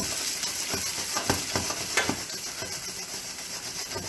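Beef pieces sizzling in a hot wok with a steady hiss, stirred so that several short scrapes and knocks against the pan come through.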